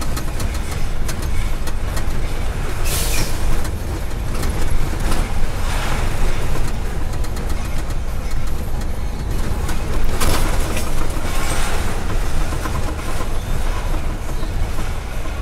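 Car tyres running over a cobblestone road, heard inside the car: a steady low rumble with a dense rattle of small knocks, and a few brief swells of hiss.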